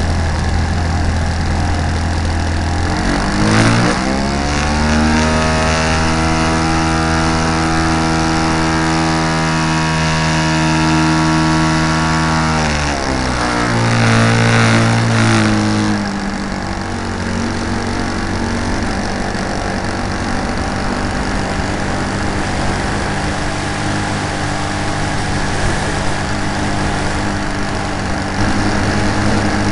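Great Planes Slow Poke RC model airplane's engine and propeller, heard from a camera on board the plane. The pitch climbs as the throttle opens about three seconds in, holds steady, then drops back over a few seconds near the middle and runs on at the lower setting, with a steady rush of air over it.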